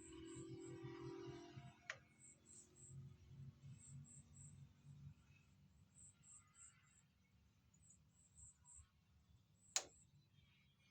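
Near silence broken by a faint click about two seconds in and one sharp air rifle shot near the end.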